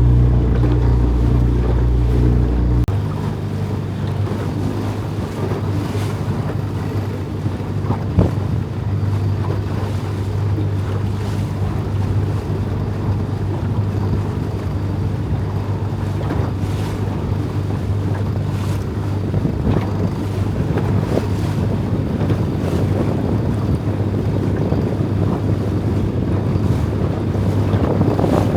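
A small boat's engine running steadily under way, with wind buffeting the microphone and water rushing past the hull. About three seconds in the engine note changes and drops in its lowest part, and a single knock sounds about eight seconds in.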